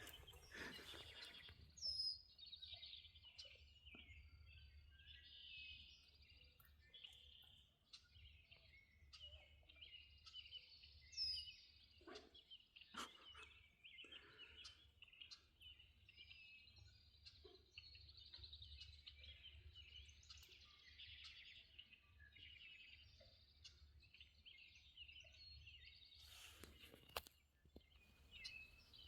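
Faint outdoor chorus of birdsong and frogs, with a steady mix of chirps and trills. A few brief rustles or knocks stand out a little before the middle and again near the end.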